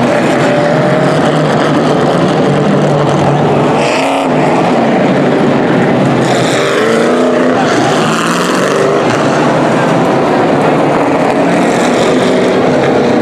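Several street stock race cars' engines running hard in a pack, the engine notes rising and falling in pitch as the cars pass by.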